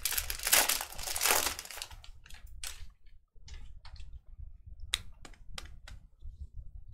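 Foil wrapper of a Panini Prizm football card pack crinkling and tearing as it is opened, dense for about the first two seconds. Then scattered light clicks and rustles of the cards being handled and sorted.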